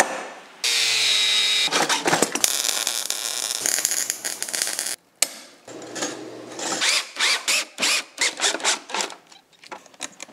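Power drill running in bursts, with a short break partway through. After that comes a fast run of clicks and knocks from metal parts being handled.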